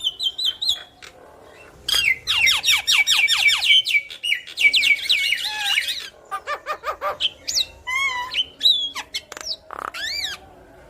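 Javan myna singing and chattering: a rapid run of sharp falling notes and dense chatter about two seconds in, then separate squeaky whistles, a short trill and harsh squawks.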